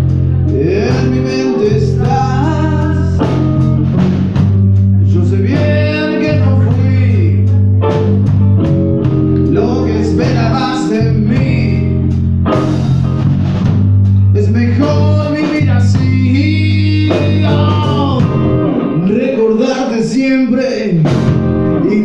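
Live blues band playing: a male voice singing over a steady electric bass line and drum kit. The bass drops out for a few seconds near the end.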